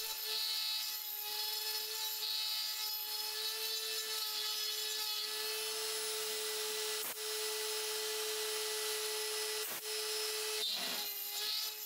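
Trim-router spindle of a desktop CNC running at high speed with a steady high whine, its end mill cutting a test pocket into aluminium plate.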